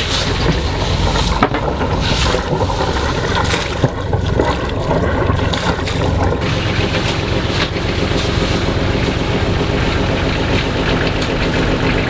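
Strong wind blowing over the microphone and around a moored sailboat: a loud, steady rush with scattered knocks and clicks.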